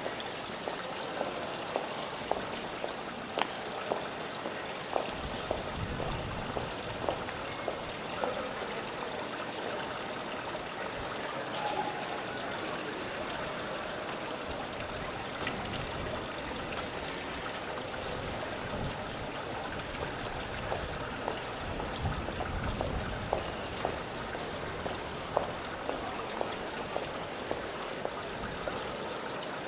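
A steady hiss like running water, with scattered sharp clicks of heeled footsteps on wet cobblestones and a couple of brief low rumbles.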